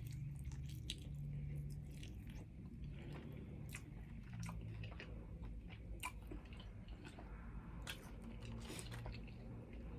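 Close-up chewing of Wingstop chicken wings, with scattered wet mouth clicks and smacks.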